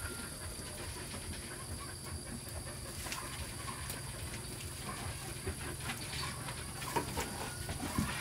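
A steady high insect drone over a low hum, with a few faint clicks and rustles as bulbs are pulled out of a cut jackfruit by hand.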